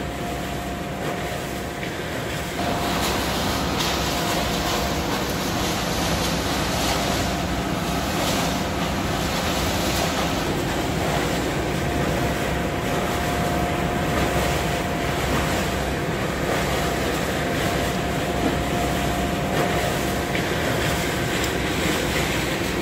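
Hammel NZS 700 D waste shredder running steadily, with a thin steady whine over a dense machine noise, while it discharges fine shredded waste into a truck bed. It gets louder about two and a half seconds in.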